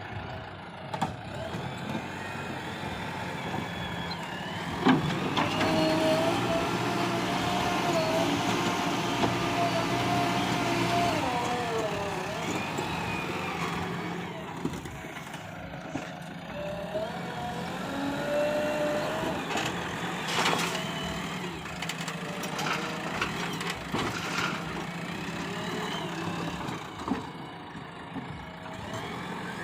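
Heavy diesel machinery engine running and working under load. A whine rises and falls, with a few sharp knocks, once about five seconds in and again around twenty seconds in.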